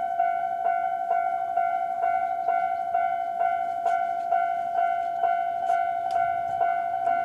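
Japanese railway level-crossing electronic alarm bell ringing its standard 'kan-kan' warning: a bright ringing tone struck again about twice a second, evenly, without pause.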